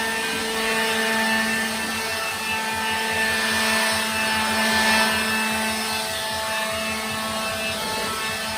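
Electric blower running steadily with a motor whine and a rush of air, blowing sanding dust off a car body; the rush of air swells a few seconds in.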